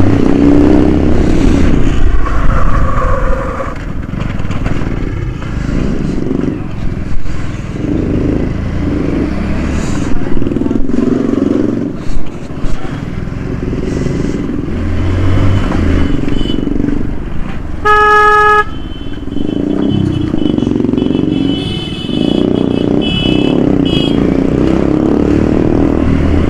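A 100 cc single-cylinder commuter motorcycle running steadily at low speed, heard from the rider's position. About two-thirds of the way through, a vehicle horn sounds once, short and loud, and fainter, higher beeps follow soon after.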